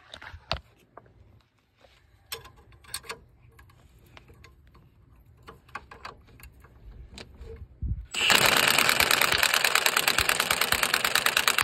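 Impact wrench on its lowest setting hammering rapidly for about three and a half seconds, starting about eight seconds in and cutting off suddenly, as it drives the nut along the threaded rod of a homemade wheel hub puller; the hub is not yet coming out. Before it, light clicks and knocks of tools being handled against the hub.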